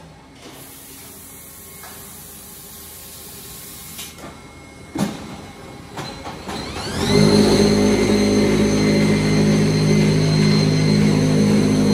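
Automatic unfired-brick press machine working: a few metallic clanks, then about seven seconds in its motors spin up with a rising whine and settle into a loud, steady hum with a high whine on top.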